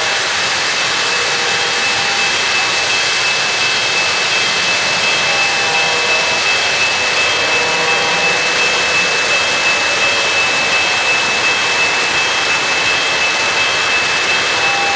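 O-gauge three-rail model trains running on the layout: a steady rolling noise of wheels on track and electric motors, with a thin steady whine above it.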